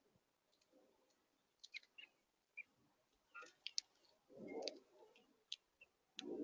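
Scattered sharp clicks and taps of birds pecking at seed on a feeder, with a low dove coo about four and a half seconds in.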